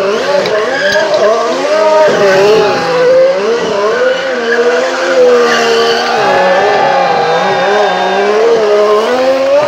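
Ferrari Formula 1 car's engine revving hard, its pitch swinging up and down without a break as the car spins donuts, with tyres squealing and skidding.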